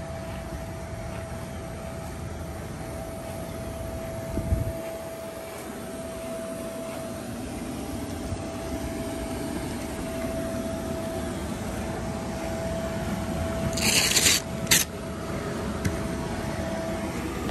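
Electric blower fan running steadily with a constant hum as it inflates a vinyl bounce house. There is a thump about four seconds in and a short burst of hiss near the end.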